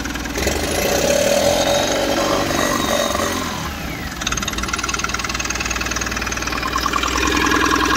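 Mahindra Supro's common-rail diesel engine running, just started after its faulty ECM was replaced. The engine note shifts about half a second in, then settles into a steady run after about four seconds.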